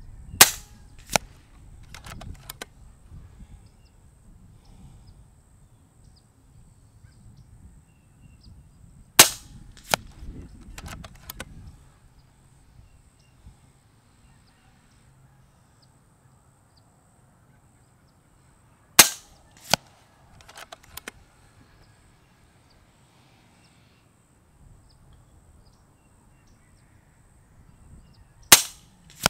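FX Wildcat MK2 .25 regulated PCP air rifle firing four shots about ten seconds apart. Each is a sharp crack, followed under a second later by a fainter snap, then a few light clicks.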